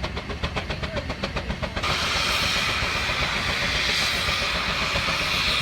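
A machine beating evenly, about six beats a second. Just under two seconds in, it gives way abruptly to a loud steady hiss of steam blowing off.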